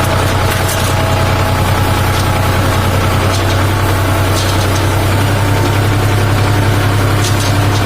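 New Holland 4710 tractor's diesel engine running steadily under load, driving a Redlands round straw baler through the PTO.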